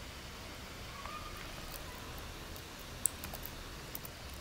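Quiet room tone with a few faint computer-keyboard clicks, the sharpest one about three seconds in.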